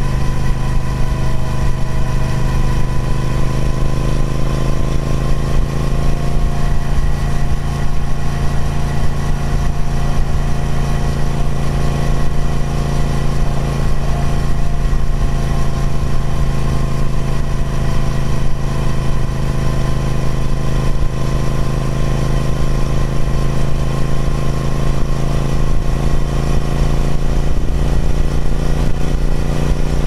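Triumph Speed Twin 1200's 1200cc parallel-twin engine running steadily through its stock exhaust, its pitch easing down slightly and then rising a little near the end.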